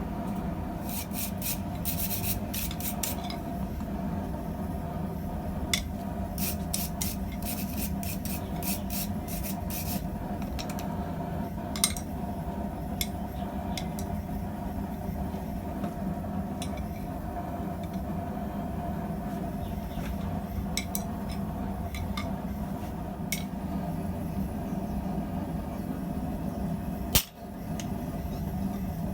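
Steady hum of a forge's air blower with scattered light metallic clicks and scrapes of steel and tools being handled, and one sharper knock near the end.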